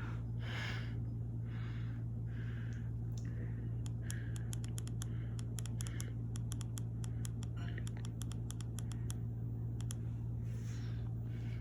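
Buttons on a ceiling-fan remote being clicked in a quick run of sharp clicks for about five seconds, over a steady low hum.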